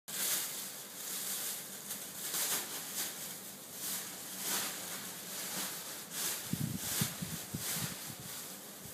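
Scottish fold cat chewing fresh green vegetable stalks, with crisp crunching bites about twice a second. A few low thumps come about two-thirds of the way in.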